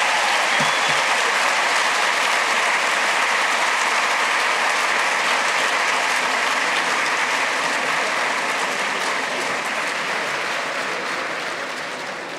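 Large audience applauding, the clapping slowly dying down over the last few seconds.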